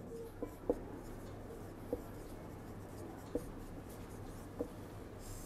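Marker pen writing on a whiteboard: faint scratching strokes, with a few short, sharper strokes spread through as letters are formed.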